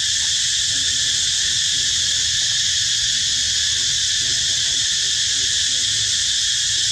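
Steady, unbroken insect chorus, a dense high-pitched drone of crickets or cicadas.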